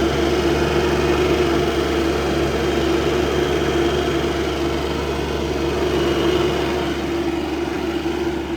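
Kubota SCL1000 track loader's diesel engine running steadily, its throttle held by a coat hanger rigged in place of a snapped throttle cable.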